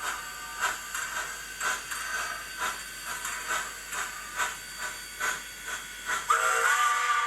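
HO scale Heisler steam locomotive's ESU LokSound 5 sound decoder playing steam chuffs, about two a second, through the model's small speaker. Near the end the steam whistle sounds and holds.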